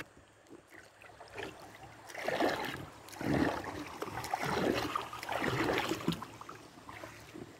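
River water splashing and sloshing around inner tubes drifting downstream. It comes in irregular surges from about two seconds in.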